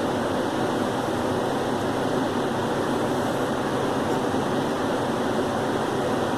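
A steady, even rushing noise, unchanging in level, with no coughs or other sudden sounds.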